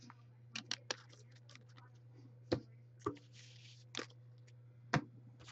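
Panini Prizm chromium football cards being handled: scattered light clicks and snaps, about seven in all and irregularly spaced, as cards are flipped through a stack and set down. A steady low hum runs beneath.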